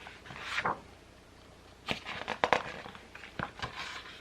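A paper picture-book page being handled and turned: a soft swish of paper, then a few light clicks and rustles as the book is handled.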